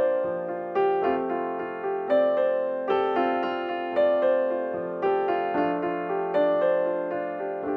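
Background keyboard music in a calm, piano-like style: chords struck about once a second, each ringing out and fading before the next.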